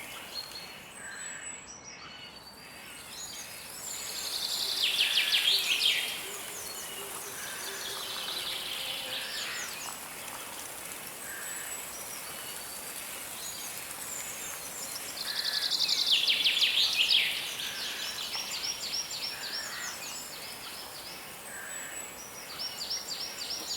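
Forest birdsong: one bird repeats a loud, rapid trilled song about every ten seconds, around 4 s, 15 s and again near the end, with short high chirps from other birds in between. A steady hiss of river water runs underneath.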